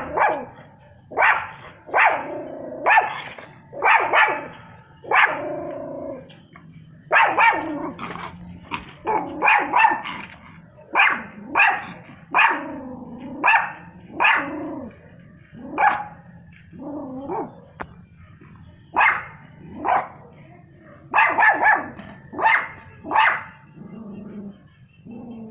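Small dog, a Yorkshire terrier, barking in a long run of single barks about one a second, broken by a few short pauses.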